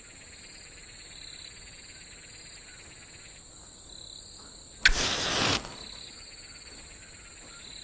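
Crickets chirping steadily at night. About five seconds in, a sudden loud rushing swish lasting under a second: the film's sound of a single blade stroke cutting a throat.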